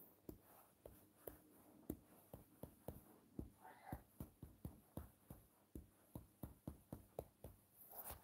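Faint, quick taps on a phone's touchscreen, about three to four a second at an uneven pace, as short brush strokes are dabbed on in a drawing app.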